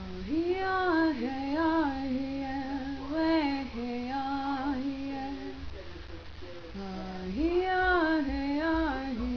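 A woman singing a slow melody with long wavering held notes, in two phrases: the second, starting about seven seconds in, repeats the opening rise of the first. A low hum runs beneath.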